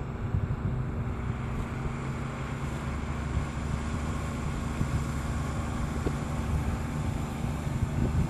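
Water tanker truck's engine running steadily as the truck creeps over dirt, spraying water from its front nozzles to keep the dust down: a continuous low rumble.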